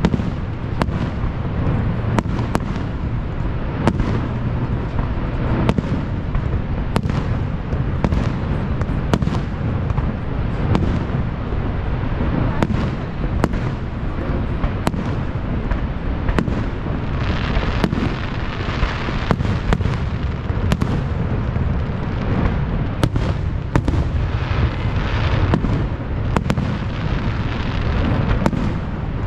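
Distant aerial fireworks shells bursting in an irregular string of sharp bangs, about one or two a second, with stretches of crackling about two-thirds of the way in and again later, over a steady low rumble.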